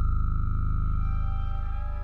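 Film score: a low, fast-pulsing drone under a steady high sine-like tone, fading away as sustained musical notes come in about a second in.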